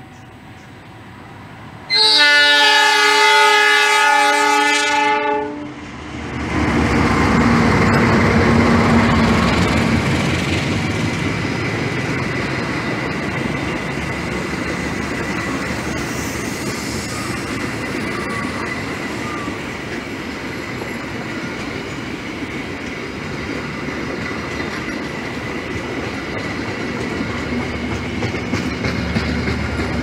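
CC 206 diesel-electric locomotive sounding its air horn in one long blast of about three and a half seconds, cut off sharply. Then the locomotive and its passenger coaches pass close by with steady rolling noise.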